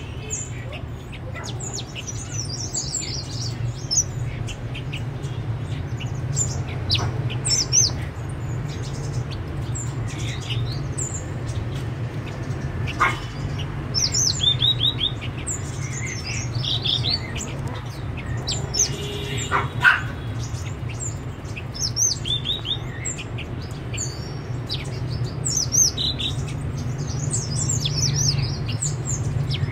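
Caged blue-winged minlas giving a steady run of short, high chirps and twittering calls, over a steady low hum.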